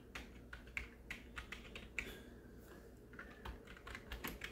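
Typing on the keys of a Rii RK100 gaming keyboard: a run of quick, irregular key clicks, sparser in the middle and faster near the end.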